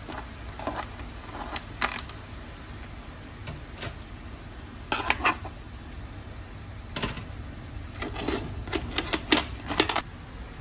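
Metal tongs clicking and knocking against steamed crabs and the aluminium steamer pot as the crabs are lifted out, in irregular clatters that grow busier in the second half.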